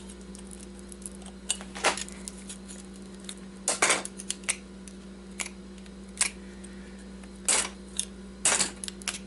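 Thin steel transformer core laminations clinking and scraping as they are pried loose and pulled out of the core with a small knife: irregular metallic clicks, loudest about four seconds in and again near the end.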